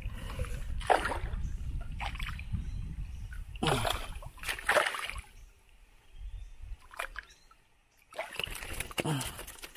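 Water splashing in several bursts as a hooked fish is played and brought to the side of a small boat, over a low rumble of wind or handling noise. The biggest splashes come about four seconds in, with another cluster near the end.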